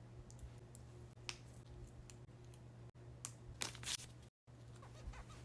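Quiet room with a steady low hum and a few brief rustles and clicks, once about a second in and a cluster about three and a half seconds in, as of small items being handled.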